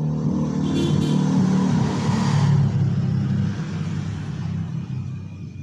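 A motor vehicle's engine hum that swells to a peak about two seconds in and then fades, like a vehicle passing by.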